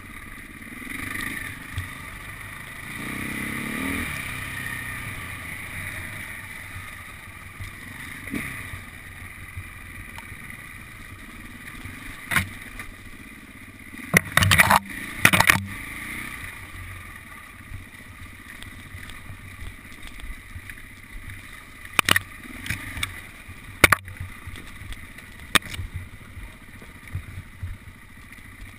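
Enduro motorcycle engine running along a dirt trail, revving up about three seconds in. Sharp knocks and clatter break in, a cluster of them about halfway through and a few more later.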